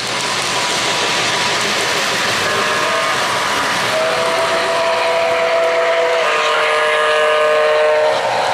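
O-gauge model diesel locomotive sounding its electronic horn over a steady rolling noise from trains running on three-rail track. A chord is held for about two seconds starting about four seconds in, followed straight away by a second, slightly lower chord for about two more seconds.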